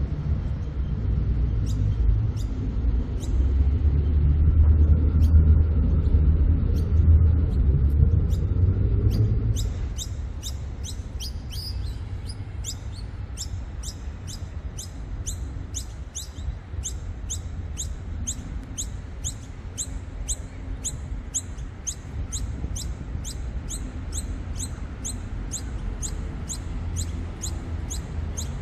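Low rumble of city traffic, loud for the first nine seconds or so and then easing off. From about a third of the way in, short high chirps repeat evenly, about two a second, over the rest of the sound.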